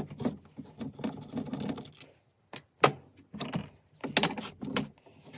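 Handling noise from taking apart a Makita DSS611 circular saw's motor at its carbon brushes: irregular clicks, taps and scrapes of small plastic and metal parts, with a sharp click about three seconds in and a few more just after four seconds.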